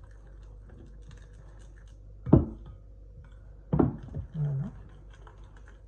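Fork stirring flour into wet dough in a glass mixing bowl, with faint scraping and ticking, and two dull thumps about two and a half and four seconds in.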